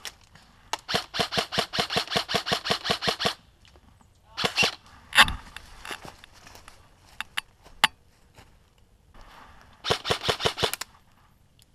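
G&G M4 airsoft rifle firing on full auto: a rapid rattle of evenly spaced shots lasting about two and a half seconds starting about a second in, then a shorter burst of about a second near the end. A few separate knocks and clicks fall between the two bursts.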